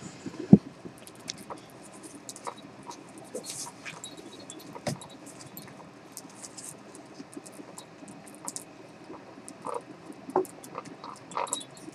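Portuguese Water Dog puppies moving about on puppy pads: soft scrabbling and rustling with scattered small clicks, a thump about half a second in, and a few brief squeaks near the end.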